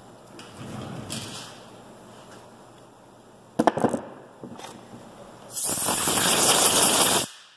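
Compressed-air blow gun giving one long blast of almost two seconds near the end, blowing off the freshly ported aluminium cylinder head. A few sharp knocks come a little before it.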